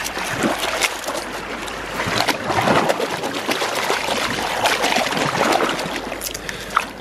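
Shallow tidal water splashing and lapping around a hand gathering wild Pacific oysters, with many small sharp clicks and knocks of oyster shell.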